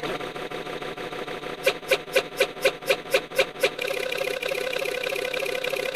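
A run of about nine sharp clicks, roughly four a second, over a steady buzzing background sound, starting a little over a second and a half in.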